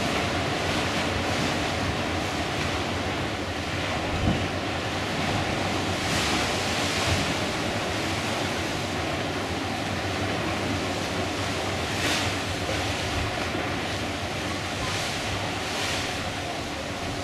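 Sea water rushing and splashing along the hull of a moving cruise ship, with wind buffeting the microphone. The wash surges every few seconds over a steady low hum, with one short knock about four seconds in.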